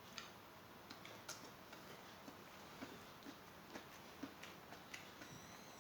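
Faint eating sounds at a meal: scattered small clicks and taps, about two a second, from utensils or food on a plate and chewing.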